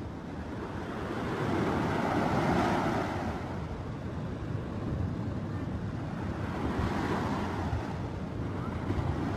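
Ocean surf: waves washing onto a beach, the rush of water swelling and falling back twice.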